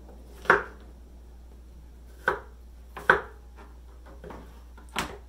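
Kitchen knife knocking on a cutting board while ripe persimmons are cut: about five sharp, irregularly spaced strokes, the strongest about half a second in, around three seconds in and near the end.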